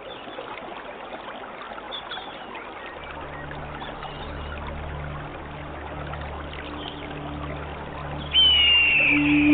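Water trickling and flowing steadily, with faint bird chirps. A soft, steady low music drone fades in about three seconds in. Near the end a loud high whistle slides downward over a held low note.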